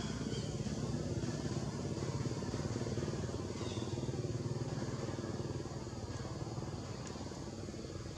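An engine running steadily as a low rumble.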